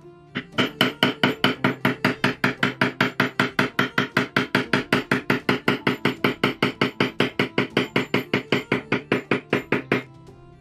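Poly maul striking a metal leather-tooling stamp (a beveler) into leather laid on a stone slab, in a fast, even series of sharp taps about five a second. The taps stop suddenly about ten seconds in.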